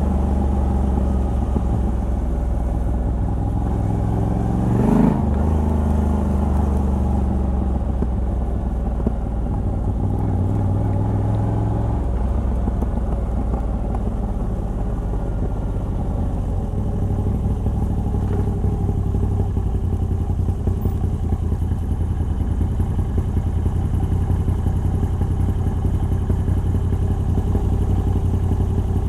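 Moto Guzzi V85TT's air-cooled transverse V-twin, on the stock exhaust with a Mistral de-cat pipe, running under way on the road. The revs fall at first, rise and fall sharply about five seconds in, then hold steady.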